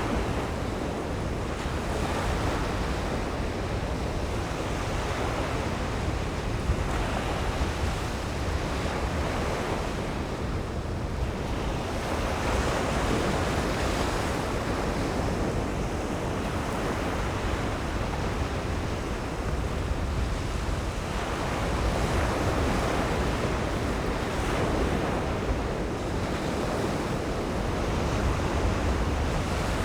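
Atlantic surf breaking on a sandy beach: a continuous wash of waves that swells several times as waves crash and then ebbs back.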